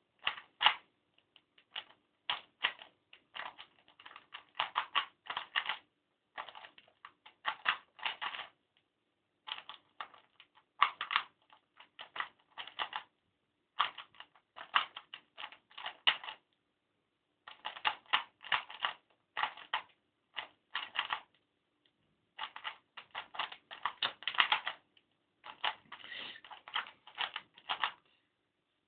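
Plastic 3x3 Rubik's Cube being turned rapidly by hand during a speed-solve: quick runs of clicking and clacking as the layers rotate, broken by short pauses.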